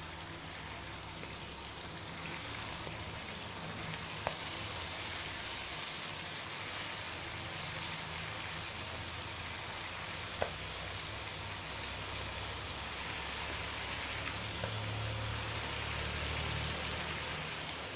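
Rice-flour dough patties sizzling in a pan of hot oil at medium flame: a steady, even crackling hiss of deep-frying, with a couple of faint clicks.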